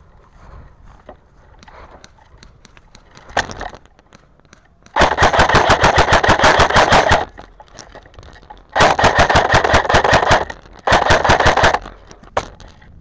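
M4-style airsoft rifle firing three fully automatic bursts of rapid, evenly spaced shots close to the microphone. The first burst, about five seconds in, runs about two seconds. The other two come shorter near the end, separated by short pauses.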